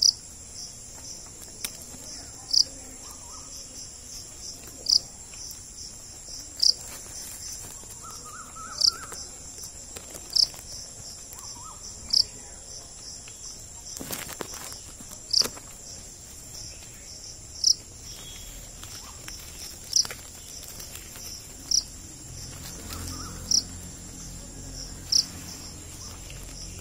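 Cricket chirping: short, loud, high-pitched chirps about every two seconds, over a continuous high insect trill. A single knock about halfway through.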